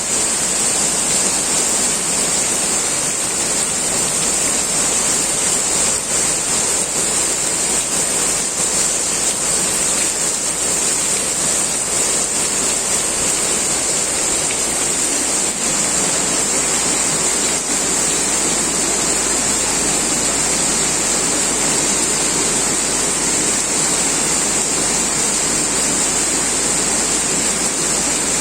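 Heavy downpour of rain pouring down steadily.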